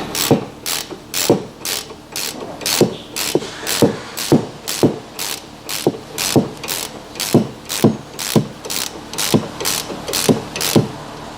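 15 mm ratcheting wrench worked back and forth by hand on a suspension bolt, its pawl clicking in quick, even strokes of about three clicks a second.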